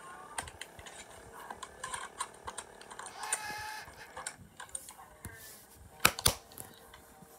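RCA portable DVD player's disc drive clicking and ticking irregularly while it loads and reads a disc, with a brief whir about three seconds in and two sharp, loud clicks about six seconds in.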